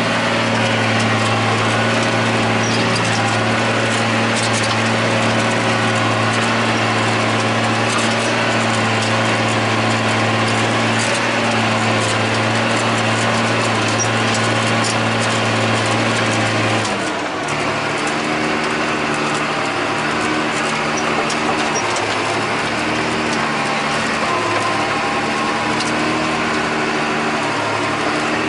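John Deere 8100 tractor's six-cylinder diesel engine running steadily while pulling a disk ripper, heard from inside the cab. About two-thirds of the way through, its note changes to a different steady pitch.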